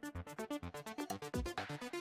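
Electronic dance music with a fast, even synth pulse. Near the end a falling sweep leads into the next section.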